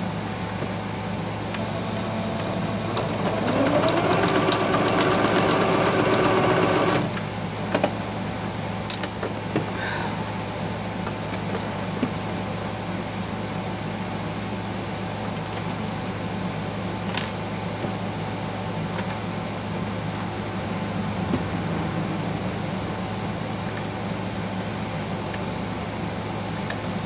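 Singer sewing machine running for about four seconds, its motor pitch rising as it speeds up, then stopping abruptly, followed by a few scattered clicks. A steady fan-like hum runs underneath.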